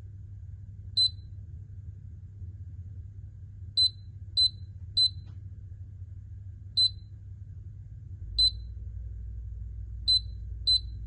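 ENEFT hot water heat pump control panel beeping as its buttons are pressed to set a timer: eight short, high beeps at uneven spacing, some in quick succession, over a low steady hum that grows deeper about eight seconds in.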